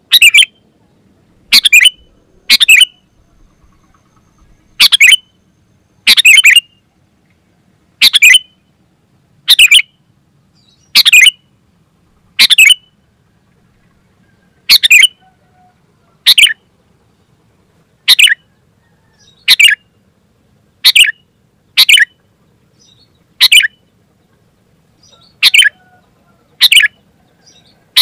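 Sooty-headed bulbul (kutilang) calling vigorously: short, loud chirping phrases repeated about every one to two seconds, around eighteen in all.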